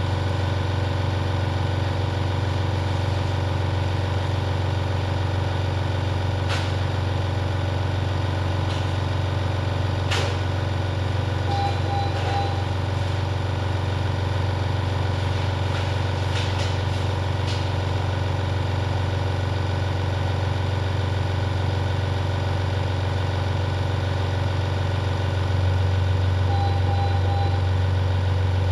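Steady low electrical hum of neonatal medical equipment around a baby on a ventilator, with a few faint clicks. Twice, about fifteen seconds apart, a monitor gives a short pair of high electronic beeps. The hum gets slightly louder near the end.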